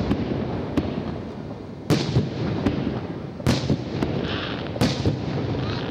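Aerial firework shells bursting overhead: four loud bangs, at about two, two and a bit, three and a half and five seconds in, each with a trailing rumble, and lighter cracks between them over steady background noise.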